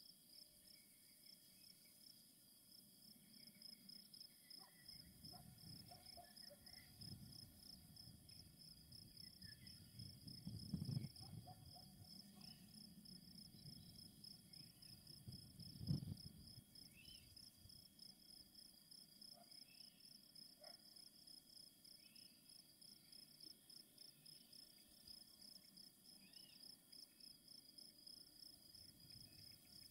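Faint, high-pitched chorus of crickets chirping in a steady fast pulse, with a few short, faint bird chirps. A faint low rumble comes and goes, with two brief low thumps, one about eleven seconds in and a louder one about sixteen seconds in.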